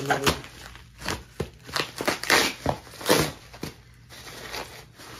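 Bubble wrap and plastic bag crinkling and rustling in irregular bursts as they are handled and pulled off a packaged seat part.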